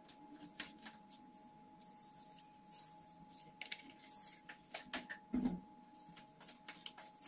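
Scattered small clicks and clinks of kitchen utensils and dishes being handled, with a dull thump about five seconds in, over a faint steady hum.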